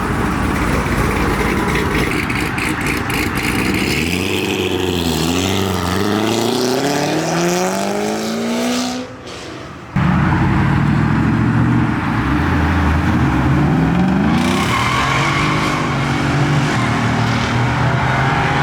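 Loud car engine accelerating away, its pitch climbing and dropping back a few times. The sound drops off sharply about nine seconds in, and loud engine sound starts again abruptly a second later, rising once more.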